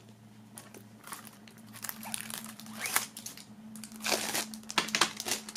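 Plastic shrink-wrap being torn open and peeled off a CD jewel case, crinkling in irregular bursts that start about two seconds in.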